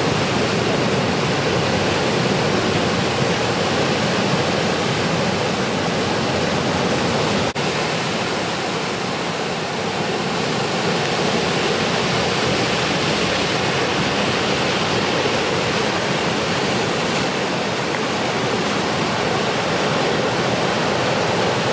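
Steady roar of ocean surf breaking in a post-typhoon swell, with a brief break about seven and a half seconds in.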